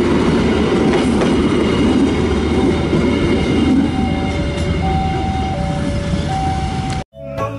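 Passenger coaches of a train rolling past with a steady rumble and scattered wheel clicks over the rail joints. From about halfway in, a level-crossing warning chime sounds in alternating high and low tones. The sound cuts off suddenly near the end, and music starts.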